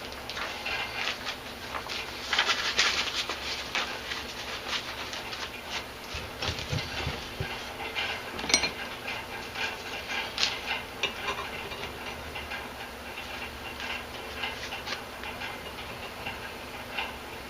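A fan running steadily under a scatter of irregular light clicks and taps.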